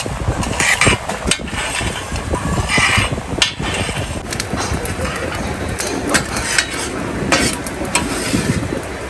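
Irregular sharp knocks and clatter over a steady background din of a busy restaurant, with no one speaking close by.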